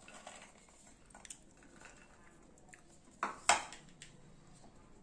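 Kitchen clatter: a few faint taps, then two sharp knocks close together a little past halfway, as a steel mixer-grinder jar filled with sweet corn kernels and a plastic bowl are set down on the counter.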